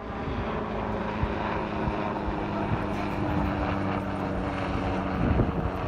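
Helicopter flying overhead, a steady drone of engine and rotor, with a few low thumps that are loudest near the end.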